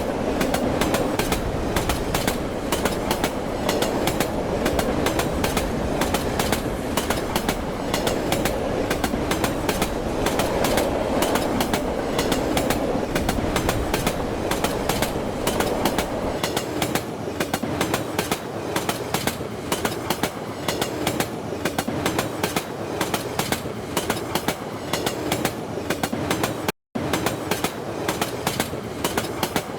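Indian train running on the track, its wheels clattering rapidly and steadily over the rails beneath a heavy rumble. The deepest rumble eases about halfway through, and the sound drops out for a split second near the end.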